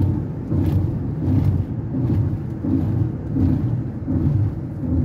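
Car engine and road noise heard from inside the cabin, a low sound that swells and eases roughly every second.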